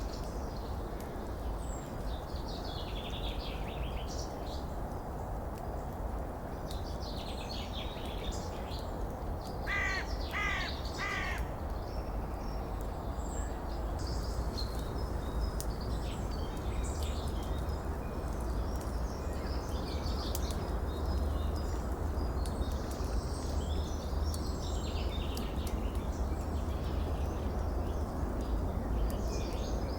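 Small birds chirping and singing over a steady rush of water. About ten seconds in come three harsh calls in quick succession.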